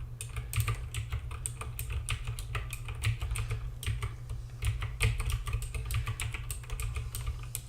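Razer keyboard's Razer key switches being typed on rapidly: a fast, irregular run of sharp key clicks, several a second, with no pause.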